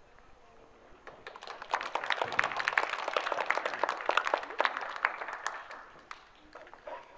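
Small audience clapping: applause starts about a second in, builds quickly, then thins out and dies away near the end.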